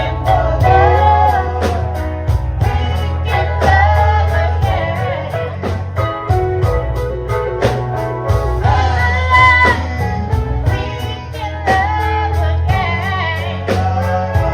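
Live gospel band music: a singer over electric guitar, bass and drums with a steady beat.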